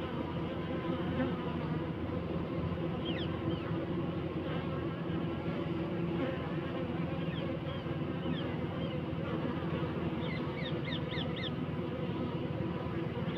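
Honey bees buzzing: a steady, continuous hum from the wingbeats of many bees. A few short high chirps sound faintly behind it.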